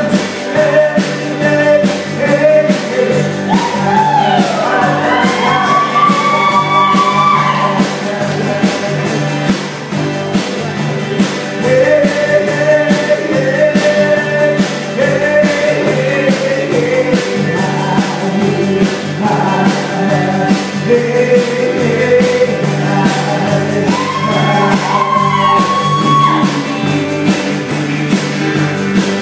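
A live band playing a country-rock song, with electric guitars, an acoustic guitar, drums and a singer. It is loud and continuous, heard from among the audience in a gymnasium.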